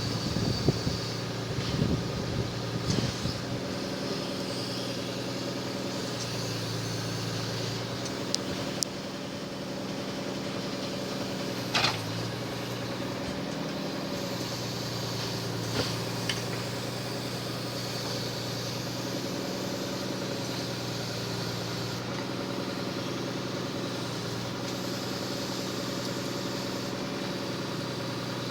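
Engine of the truck carrying a Munck forestry crane running steadily at idle, with a few short knocks in the first three seconds and again about twelve seconds in.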